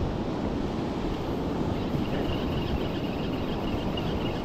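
Wind buffeting the microphone over breaking surf, a steady rushing rumble. A faint high rasping joins about halfway through.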